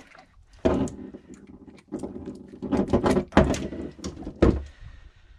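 Irregular knocks, clicks and rubbing as a grey gurnard is handled in a cloth and unhooked with pliers over a boat's fibreglass deck. The sound cuts off suddenly near the end.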